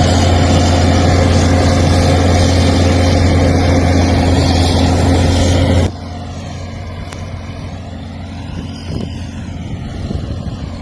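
Heavy construction machine's diesel engine running steadily with a deep hum. The sound cuts off abruptly about six seconds in, leaving a much quieter rushing noise that swells slightly near the end.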